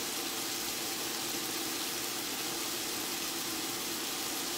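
The Cajun trinity of chopped onion, celery and bell pepper sizzling steadily in butter and oil in a pot on medium-high heat.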